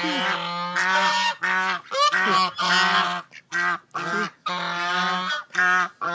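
Geese honking: a run of about ten loud, harsh calls, some short and some drawn out, with brief gaps between them.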